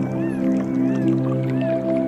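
Background music: sustained steady tones with a short high gliding figure repeating over them.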